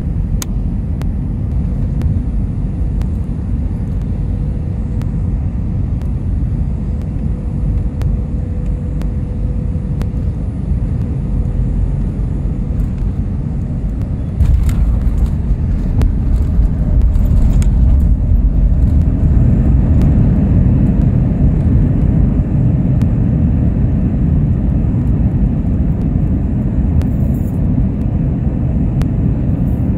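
Airbus A320 cabin noise on final approach and landing: a steady low rumble of airflow and engines. About halfway through, the level jumps suddenly with a few seconds of thuds and rattles as the wheels touch down. A louder rumble follows as the engines spool up for reverse thrust and the aircraft decelerates on the runway, slowly easing off toward the end.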